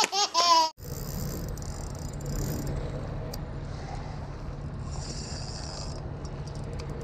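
A baby's laughter ends abruptly in the first second. Then comes a steady open-air background of low hum and hiss by the sea, with a few faint clicks from handling a spinning reel.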